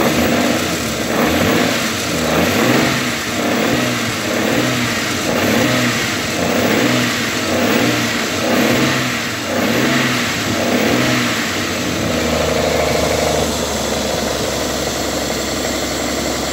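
Toyota 1JZ-GE straight-six engine blipped with short throttle stabs, about one a second, for most of the stretch, then settling to a steady idle near the end. The owner says it knocks when cold, cause unknown.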